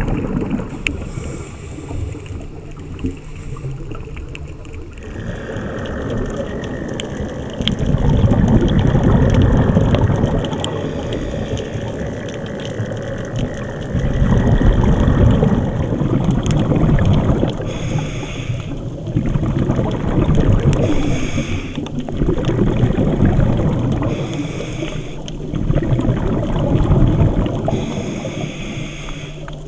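A scuba diver breathing through a regulator, heard underwater. Surges of exhaled bubbles come every few seconds, with a hiss of air on each breath in between.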